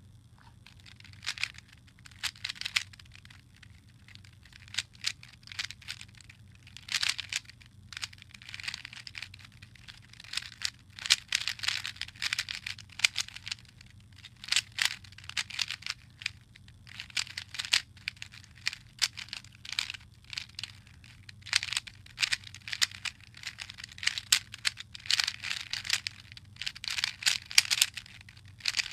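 A plastic Rubik's cube being turned fast in a timed speedsolve: rapid clicking and clacking of the layers in flurries, broken by short pauses. A faint steady hum lies underneath.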